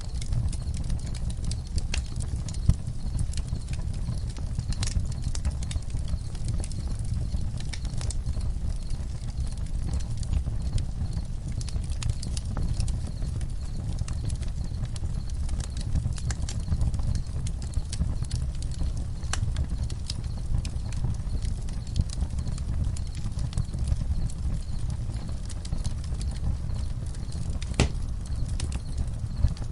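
Campfire crackling, with sharp pops and snaps scattered irregularly over a steady low rumble, and crickets chirping faintly behind it.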